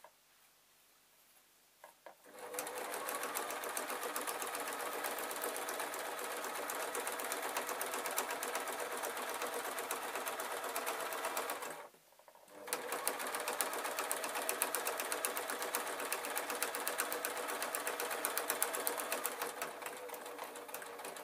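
Basic domestic electric sewing machine stitching through layered patchwork fabric, a fast steady run of needle strokes. It starts about two seconds in, stops briefly about halfway, then runs again and stops at the end.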